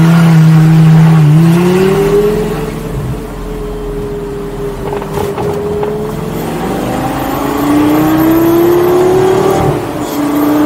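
2004 Lamborghini Gallardo's straight-piped 5.0 V10 under hard acceleration. The engine note climbs, dips briefly at a gear change about a second in, and pulls up again to a steady run. It then climbs once more and drops suddenly as the throttle is lifted near the end.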